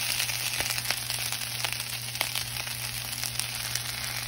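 Chopped red onions sizzling in sesame oil in a pan: a steady hiss with scattered sharp crackles. The onions are well softened.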